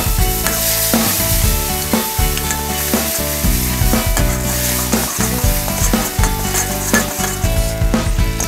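Chopped garlic and seasoning sauce sizzling steadily in hot oil in a steel wok while a metal ladle stirs and scrapes them, knocking against the pan every second or two.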